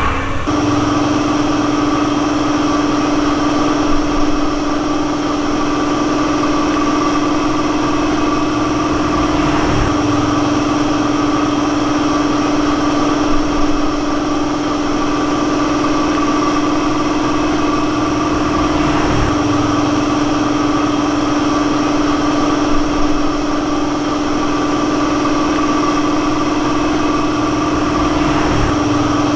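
An engine or motor running steadily at one speed, an unchanging hum that holds throughout.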